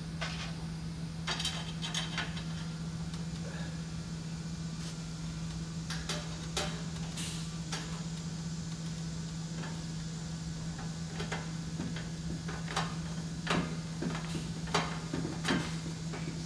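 Scattered faint clicks and light metal taps as a handheld screwdriver drives a screw into the thin sheet-metal bottom plate of a tankless water heater's mounting bracket, over a steady low hum.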